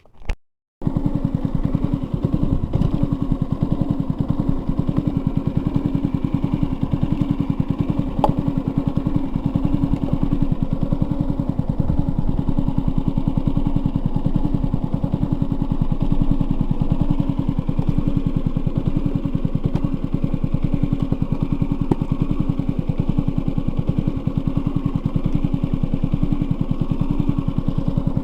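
Small engine running steadily at a constant speed, cutting in abruptly just under a second in.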